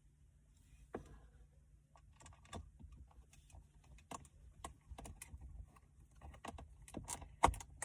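Scattered light clicks and taps of plastic dashboard trim and screws being handled as the trim around a car's climate control panel is screwed back in. The taps come more often and louder near the end, over a low steady hum.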